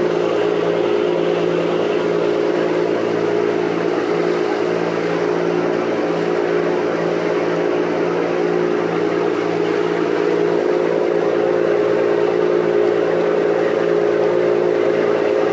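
Boat engine running steadily at constant speed, a continuous hum, with a steady rushing noise of water and air over it.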